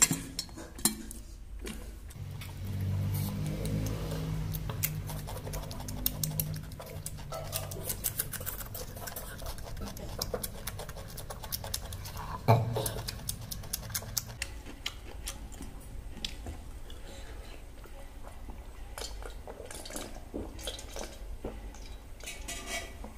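Eating by hand at a table of steel dishes: scattered small clicks and handling sounds, with one sharp clink of a steel bowl about twelve seconds in. A low hum runs for a few seconds near the start.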